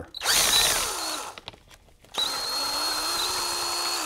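Cordless drill-driver spinning a 13 mm socket to back a front bearing retainer bolt out of a T5 five-speed's aluminium case. It makes two runs: a short one that winds down in pitch, then a steady run of about two seconds that stops suddenly.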